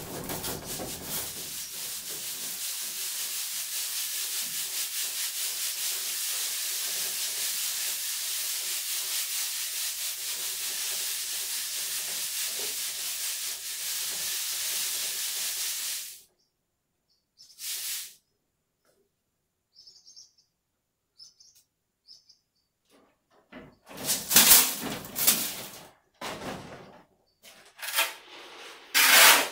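Sand hissing through a rope-hung mesh sieve as it is shaken back and forth, a steady hiss with a slight pulsing that stops abruptly about sixteen seconds in. Near the end, a shovel scrapes up sand from the floor to load the sieve, in several loud scrapes.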